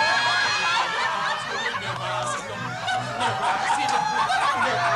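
Audience laughing over a music track with a repeating bass line.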